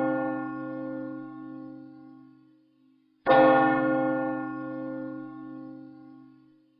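A large bell tolling slowly: the ring of one stroke fades away, and a second stroke comes about three seconds in. Each strike rings out deep and rich with a slight wavering, then fades over several seconds.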